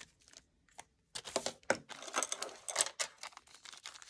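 A marker making faint short strokes as it writes on a plastic zip-top bag, then about a second in, loud crinkling and rustling of plastic bags being handled for about two seconds.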